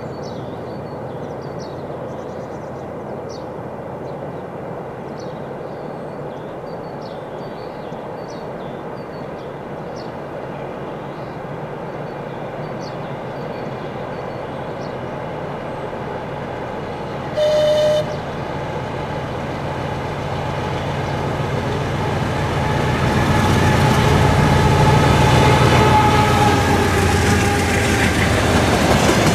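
Two coupled GE C36-7i diesel locomotives hauling a tank-car train approach, their engine rumble building steadily. A single short horn blast sounds about halfway through. The engines grow loud as the lead unit passes close, with a steady whine over the rumble.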